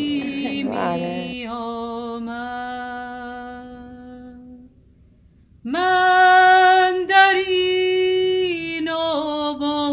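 A solo voice singing unaccompanied in long held notes. The first note fades away about halfway through. After a short pause a higher note begins and is held, wavering slightly in pitch a few times.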